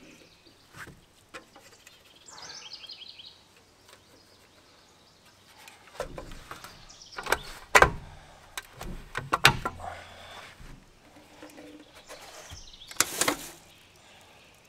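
A bird sings a short falling phrase. Then come a series of sharp knocks, clatters and thumps, loudest in the middle and once more near the end, as folding camp gear is handled and packed onto a pickup truck.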